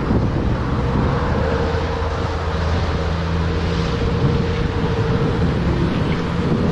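Wind rumbling on an action camera's microphone, with a steady low drone underneath.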